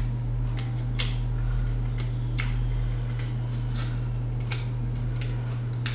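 Light, irregular clicks and taps from a paper brochure being handled and its pages turned, over a steady low electrical hum.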